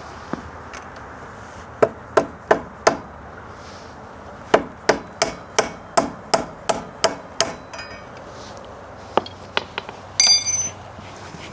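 Hammer strikes on metal, knocking the motorcycle's front wheel axle out: a run of four blows about three a second, then about nine quicker blows, then a few more. Near the end comes a brief ringing metallic clang.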